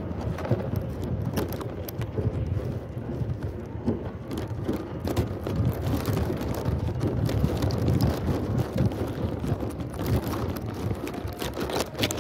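Wind buffeting the microphone of a phone hanging from a flying kite: a steady low rumble with scattered clicks.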